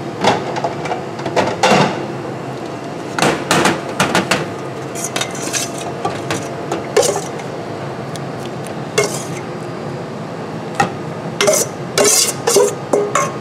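A salad chopper's metal blade knocking and scraping against a stainless steel mixing bowl as chopped greens are worked, in short clusters of sharp clanks. Near the end, the steel bowl and a utensil clank against a serving bowl as the salad is tipped out.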